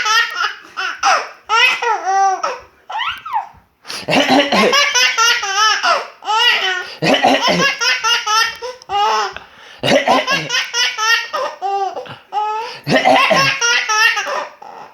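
Baby boy laughing hard in repeated fits of high-pitched belly laughter, with short pauses between fits.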